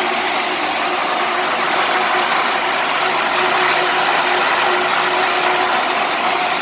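Maize silage baler machine running: a steady, loud mechanical noise with a few constant tones, unchanging throughout.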